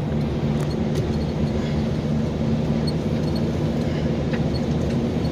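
KAMAZ truck's engine droning steadily with tyre and road noise, heard from inside the cab while driving slowly. A faint high squeak from somewhere in the cab repeats now and then, which the driver calls a cricket.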